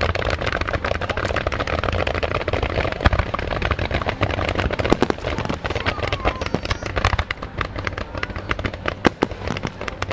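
Fireworks going off in a dense barrage of overlapping crackles and pops, thinning after about seven seconds to scattered, louder single bangs.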